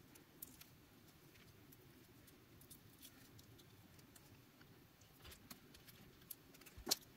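Near silence with scattered faint clicks and taps from handling a lithium-ion battery pack and a plastic pry tool, with one sharper click near the end.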